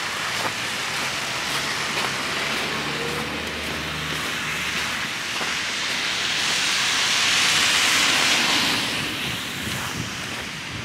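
A vehicle going by: a low engine hum in the first few seconds, then a hiss that swells to its loudest about eight seconds in and fades away.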